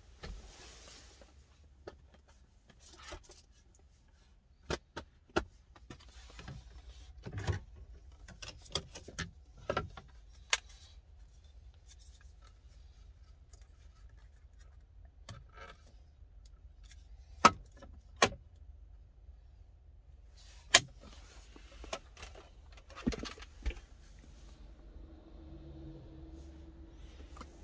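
Hands handling fittings inside a car: a scattered series of sharp clicks, knocks and light rattles as panels and plastic parts are set in place, with a few loud knocks about two-thirds of the way through. A faint steady hum comes in near the end.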